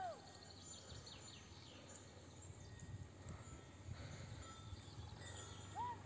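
Faint open-air ambience with a few quick high chirps and two short rising-then-falling calls, one at the start and one near the end.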